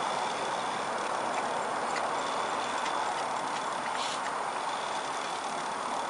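Steady rushing air noise of two small battery-powered fans running.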